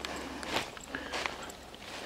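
Footsteps crunching through dry fallen leaves on the forest floor, with two or so steps heard.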